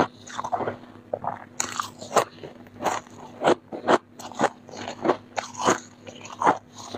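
Flaky freezer frost being bitten and chewed, a run of crisp, irregular crunches about one to two a second.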